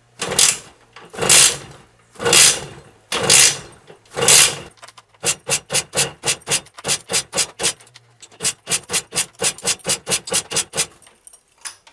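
A Simson SR50 scooter's two-stroke engine being cranked on a first start attempt and not firing. First come five long rasping strokes about a second apart, then a quicker run of short pulses, about four a second, as the engine turns over without catching.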